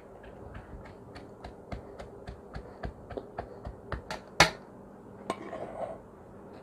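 Wooden pestle pounding boiled chana dal in a wooden mortar: a steady run of short knocks, about three or four a second, growing louder up to one loud knock about four seconds in. Another knock and a brief rustle follow near the end.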